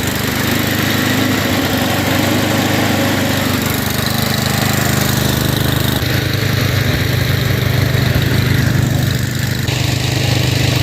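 Small gasoline engine running steadily, driving a homemade air compressor.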